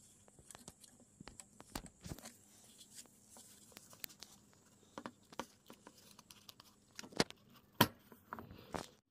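Handling noise from a plastic wheelchair footrest being turned over in the hands: scattered light clicks, rubs and taps, with two sharper knocks about seven and eight seconds in.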